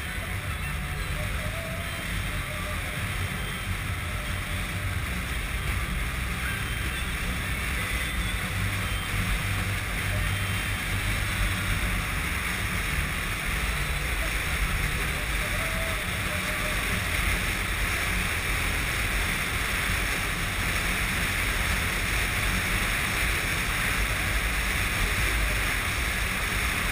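Steady wind rush over a camera mounted on a moving Honda RC51 motorcycle at road speed, with the bike's V-twin engine droning low underneath. The sound builds slightly as it goes.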